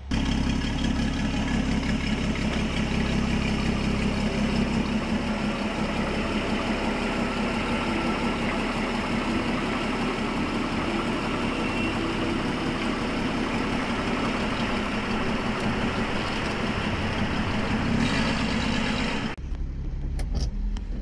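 1967 Ford Mustang's inline six-cylinder engine running steadily, a continuous pulsing engine note with road and cabin noise over it. About 19 seconds in the sound suddenly becomes quieter and duller.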